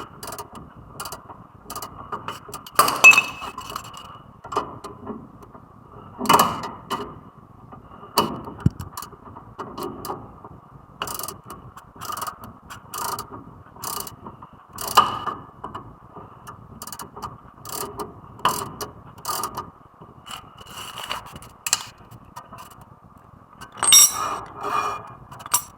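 Metal hand tools clicking and clattering on a car's front brake, with ratchet-like clicks and a few louder metal knocks at irregular intervals.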